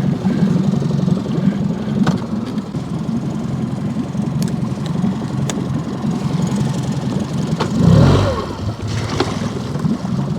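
Boat's outboard motor idling steadily, with a brief louder swell that rises and falls in pitch about eight seconds in, and a few light clicks.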